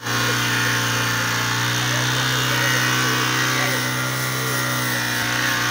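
A steady low mechanical hum that holds the same pitch and level throughout, with children's voices faintly over it.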